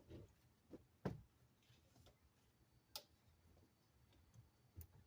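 Faint, scattered clicks and knocks of plastic parts being handled, four or so, the sharpest about a second in, as the car radio's wiring connectors are worked loose from the dash.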